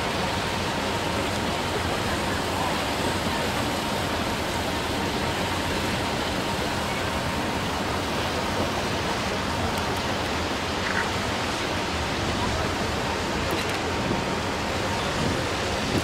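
Steady rushing noise of wind on the microphone, with a faint steady tone underneath.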